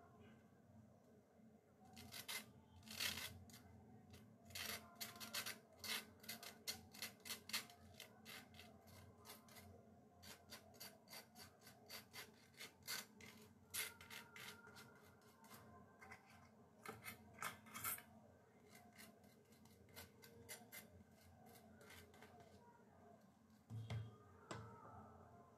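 Faint run of short rasping scrapes, two or three a second in spells with pauses, from hands working food over slices of toasted bread.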